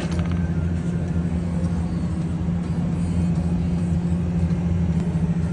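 Steady low mechanical hum from running machinery, unchanging in pitch and level.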